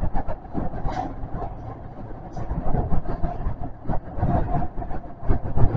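Kintetsu 400 series electric train running through a subway tunnel, heard from inside the front car: a steady rumble with irregular knocks and rattles.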